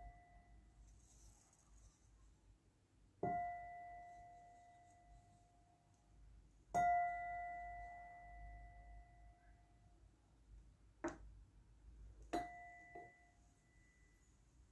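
A meditation chime struck four times: a faint strike at the start, then three clear strikes about 3, 7 and 12 seconds in. Each leaves a single clear ring that fades over a few seconds. It closes the guided meditation. Two soft knocks come near the end.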